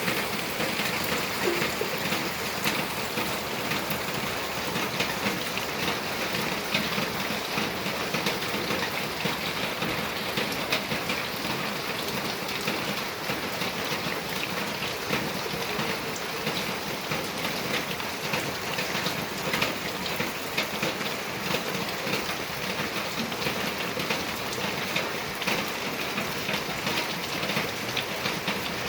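Steady rain falling, an even hiss of rain with many individual drops pattering on surfaces.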